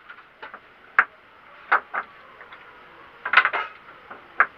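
Scattered knocks and clatter of tools and parts being handled during a bed-frame repair: about half a dozen separate light taps, with a quick run of them a little past three seconds in.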